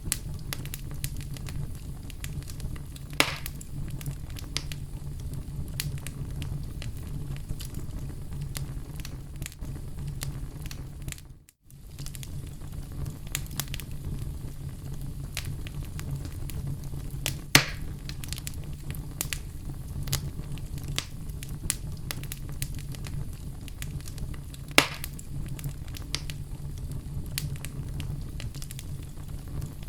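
Oak logs burning in a fireplace: a steady low rumble of flames with light crackling throughout and three louder pops, about 3, 17 and 25 seconds in. The sound briefly drops out about 11 seconds in.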